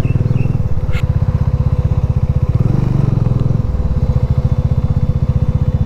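Motorcycle engine running with a steady, rapid low pulse that swells briefly around the middle.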